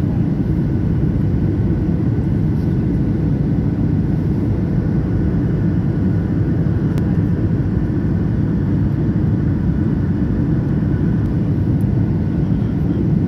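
Cabin noise inside an ATR turboprop airliner on its landing approach: a steady, loud low drone of the engines and propellers, with faint steady tones above it.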